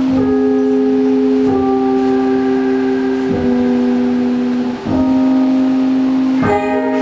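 Slow ambient music: long held chords over a steady low drone note, moving to a new chord about every second and a half.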